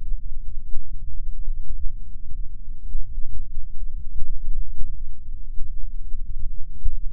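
Wind buffeting the microphone of a moving camera: a loud, uneven low rumble with nothing above it.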